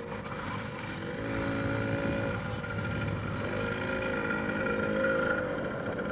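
Small child's motorbike engine running, its pitch rising and falling a few times as the throttle opens and eases off.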